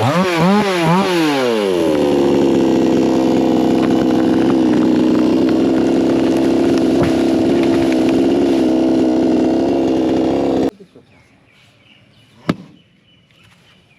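Chainsaw revved in a few quick throttle blips, then held at a steady high speed before cutting off abruptly; afterwards a single sharp knock stands out against quiet.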